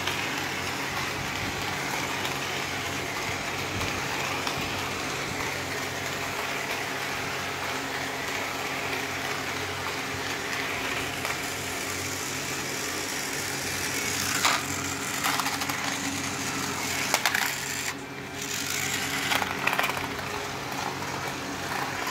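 Battery-powered toy bullet train running around a plastic track: a steady small-motor whir and rattle of its wheels on the track, with several sharp knocks in the second half.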